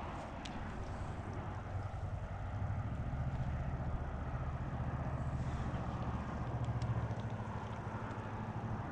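Motorboat engine running on the lake, a low steady hum that grows louder about two and a half seconds in and holds, with a few faint clicks over it.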